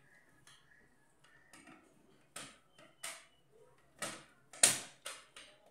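Hand screwdriver working the screws of an HP LaserJet P1006's laser scanner unit: about six short, sharp clicks and scrapes at uneven spacing, the loudest a little past the middle.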